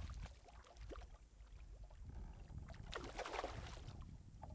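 Water splashing at the side of a kayak as a hooked fish is brought in and grabbed by hand: a short burst of splashing at the start, scattered small knocks and drips, then a longer, louder burst of splashing about three seconds in.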